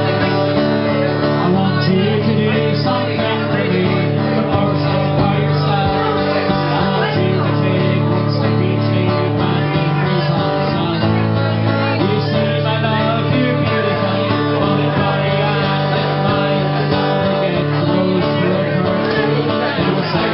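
Acoustic guitar strummed steadily, an instrumental passage of a song played live.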